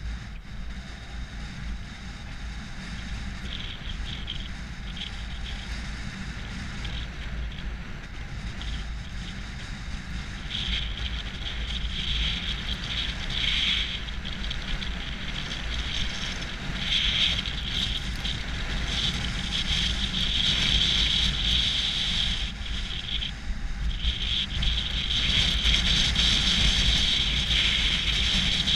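Wind buffeting a GoPro's microphone and skis hissing and scraping over groomed snow while skiing downhill, getting louder as speed builds through the second half.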